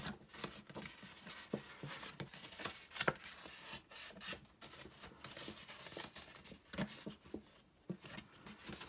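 Printed craft paper rustling and crinkling as it is handled and bent along scored folds, with a string of small crackles and clicks.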